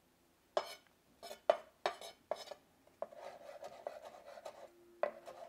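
Chef's knife chopping fresh cilantro on a wooden cutting board: a few separate sharp knocks of the blade on the board, then from about three seconds in a quick, even run of chops.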